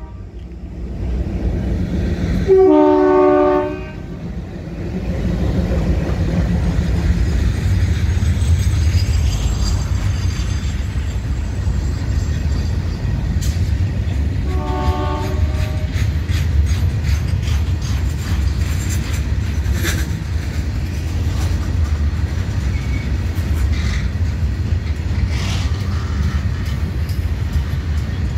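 ALCo WDM-3D diesel locomotive sounding its twin-tone horn: a blast of just over a second a few seconds in, and a shorter, fainter one about halfway. Between and after the blasts the passing train makes a steady low rumble, with wheel clicks over the rail joints in the second half.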